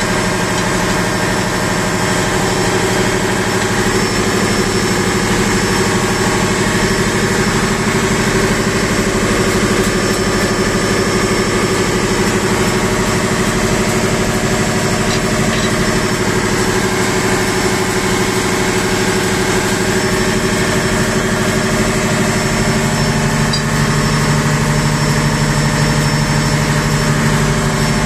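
Steady, loud drone of running ship's engine-room machinery, heard inside the opened crankcase of the main engine, which is itself stopped for inspection. A deeper hum comes up about three quarters of the way through.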